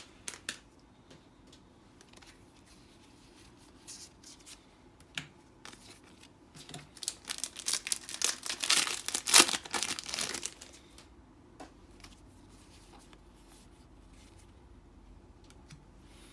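Foil wrapper of a trading card booster pack crinkling and tearing as it is opened by hand, in scattered crackles that grow busiest past the middle.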